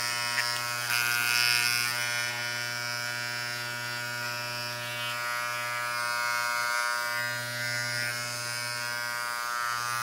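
Vintage Wahl Taper Giant electric hair clipper switched on and running with a steady, even buzz. The low hum dips briefly twice in the second half. It is running well.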